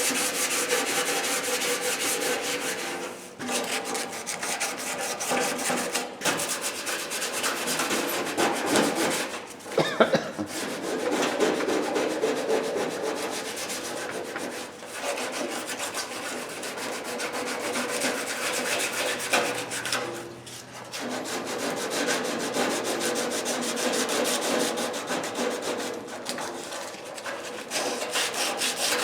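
Hand sanding a steel toolbox with sandpaper: steady rubbing and scraping strokes, broken by a few short pauses.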